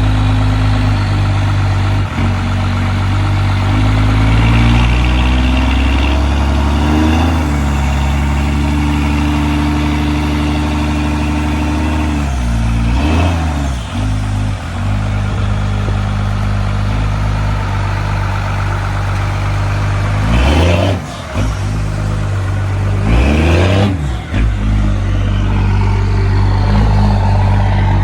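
Dodge Ram pickup's engine running. Its speed steps up over the first several seconds, then it revs up and back down quickly a few times, once about halfway through and twice near the end.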